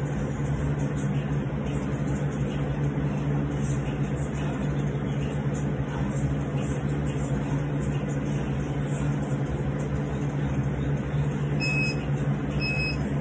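Steady low mechanical hum. Near the end, an interval timer starts beeping: two short high beeps a second apart, counting down to the next work interval.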